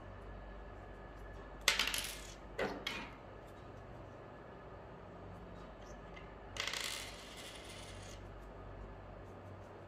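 Handling noises while a wet wipe cleans a note acceptor's rubber rollers on their metal shaft: a sharp clack with a short scrape a little under two seconds in, a smaller one about a second later, and a longer rubbing rustle around seven seconds.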